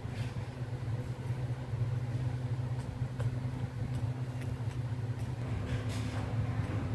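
A steady low machine hum runs throughout, with a few faint rustling clicks, the clearest about six seconds in.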